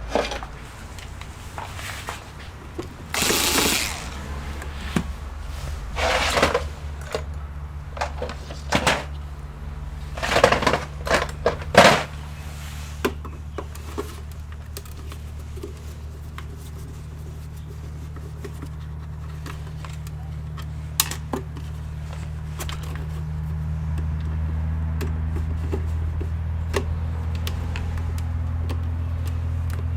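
Clicks, taps and short scraping noises of hands and tools working on a small desktop computer's case during disassembly, most of them in the first half. A steady low hum runs underneath and grows louder about two-thirds of the way through.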